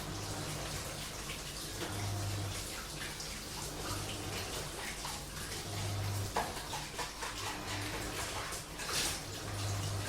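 Washing machine running, its motor humming low in short pulses about every two seconds as the drum turns, mixed with water splashing and dishes being washed by hand. A sharp clink comes about six seconds in and a louder clatter near nine seconds.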